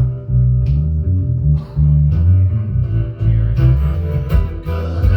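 Live band music: guitar playing over a bass line, an instrumental passage without singing.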